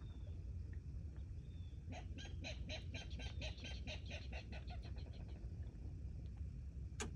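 A bird calling a rapid run of about a dozen short notes, about five a second, starting about two seconds in and fading away.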